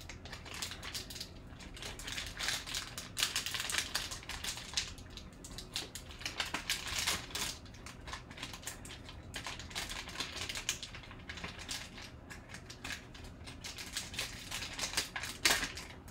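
Foil trading-card pack wrapper crinkling and crackling as it is opened by hand, in irregular bursts of small clicks.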